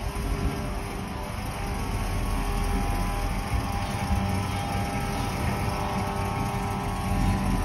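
1972 Oldsmobile Cutlass 442's V8 engine running at low speed as the car rolls down a steel loading ramp, a steady low rumble that grows a little louder toward the end.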